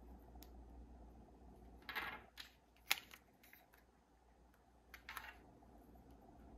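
Small plastic miniature toy packages handled and set down on a tabletop: a few light clicks and brief scrapes, the sharpest click about three seconds in, over a low steady hum.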